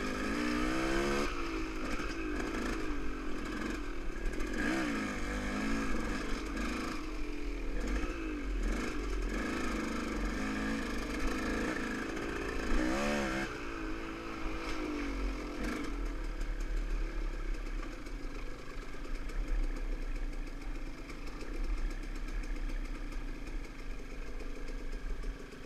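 Dirt bike engine being ridden, revving up and down over and over, then holding steadier after about two thirds of the way through.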